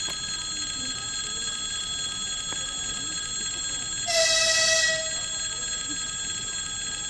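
Railway crossing warning bell ringing steadily while an ES1P Lastochka electric train approaches. About four seconds in, the train gives one short horn blast lasting under a second.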